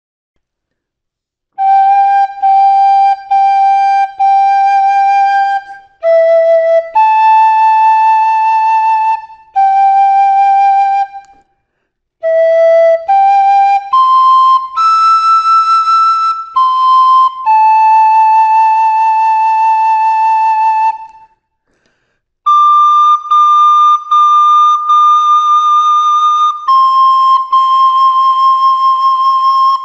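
Soprano recorder playing a slow, gentle children's melody one note at a time. It begins about a second and a half in with three repeated notes, and the phrases are separated by short breaths, some held notes wavering slightly.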